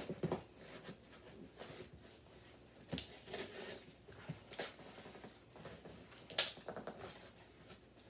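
Fingers picking and scratching at the sealed top of a cardboard shipping box to get it open: soft rustling broken by a few short, sharp scratchy tears.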